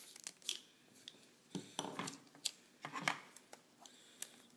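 Adhesive tape being peeled off a roll and torn into strips: two longer crackly pulls, with light clicks and crinkles from the tape being handled.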